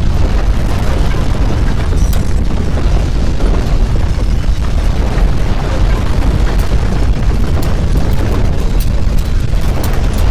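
Loud, steady deep rumble of earthquake ground shaking, with a few faint clicks over it.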